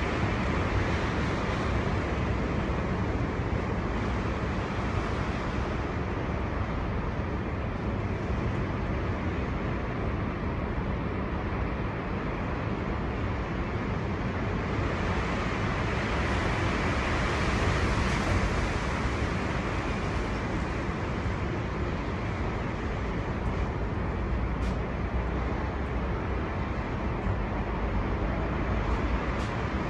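Storm wind blowing hard and steadily, a deep rumble with a rushing hiss over it, swelling into a stronger gust about halfway through. A couple of faint ticks are heard near the end.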